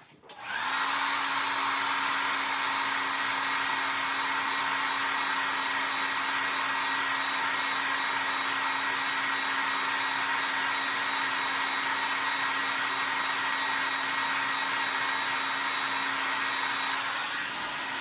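Hair dryer switched on about half a second in, blowing steadily with a constant motor hum and a faint high whine, drying a fresh coat of ink on tape; it switches off right at the end.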